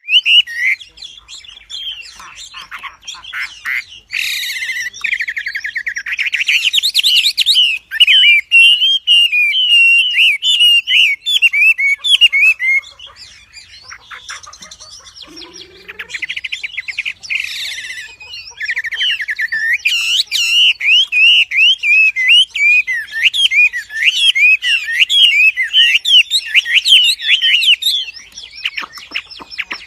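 A wambi songbird singing in full, vigorous song (gacor): long runs of fast, sharp, bending chirps. The song breaks into a sparser stretch of scattered calls midway, then resumes.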